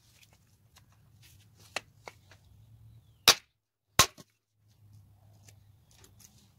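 Hatchet chopping wood on a chopping block, splitting a stick into kindling: a lighter knock a little under two seconds in, then two sharp, loud strikes about three-quarters of a second apart.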